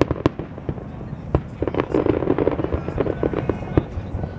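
Aerial fireworks shells bursting: scattered single bangs, then a dense run of rapid crackling reports in the middle, and another single bang near the end.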